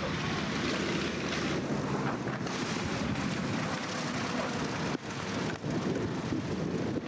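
Aircraft engine running steadily, with wind buffeting the microphone. The sound dips briefly near the end.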